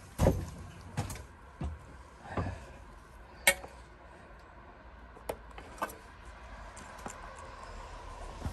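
Handling noise as the camera is picked up and carried: a string of separate knocks and clicks, the sharpest about three and a half seconds in.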